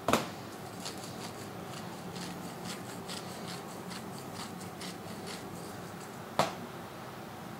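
Hand-turned seasoning grinder twisted over raw beef shank, giving a run of light clicks about three a second. A sharp knock comes at the start and another about six seconds in, as the plate and then the grinder are set down on a stainless steel bench.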